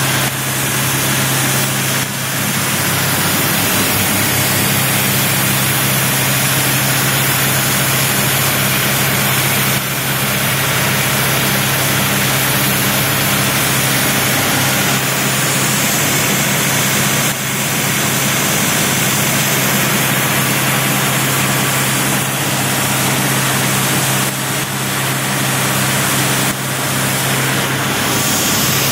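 Several engine-driven dewatering pumps running together: a loud, steady engine drone with a constant low hum underneath.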